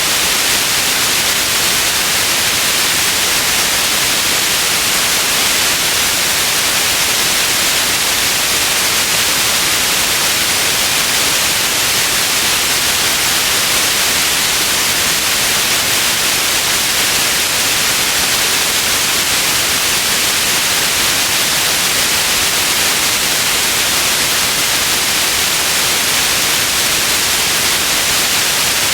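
Steady white noise: an even, unchanging hiss, strongest in the upper range.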